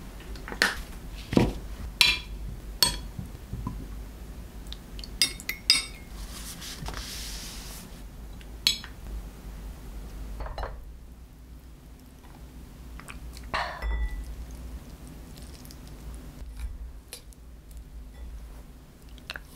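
Tableware clinking and knocking as food is dished up: sharp clinks of ceramic plates, utensils and glass, several close together in the first few seconds and a few more scattered later.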